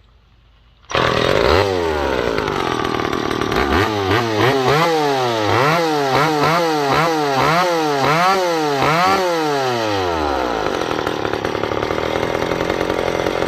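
McCulloch two-stroke chainsaw running with its spark arrestor screen removed: it comes in suddenly about a second in, is blipped up and down in quick revs, about two a second, then drops back to a steady idle near the end.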